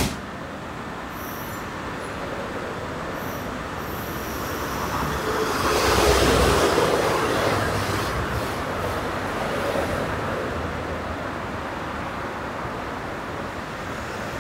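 An electric commuter train moving through the station: its running noise swells to a peak about six seconds in, then slowly fades. A brief sharp click at the very start.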